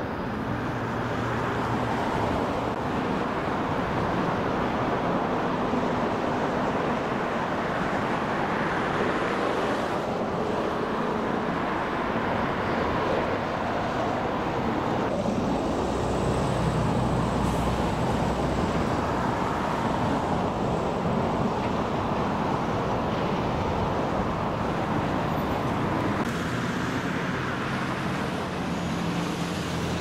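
Steady road traffic noise: a continuous rumble of passing vehicles with low engine hum, its mix shifting abruptly three times.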